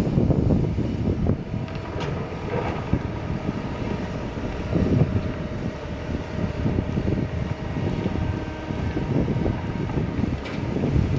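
Kobelco 220 excavator's diesel engine running under load as it works, an uneven low rumble with a faint steady whine in the middle, with wind buffeting the microphone.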